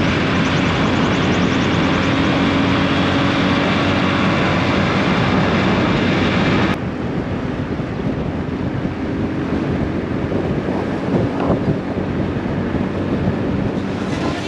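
Motorbike engine running at road speed, with wind rushing over the microphone. About seven seconds in, the sound suddenly drops to a duller, slightly quieter engine and road rumble.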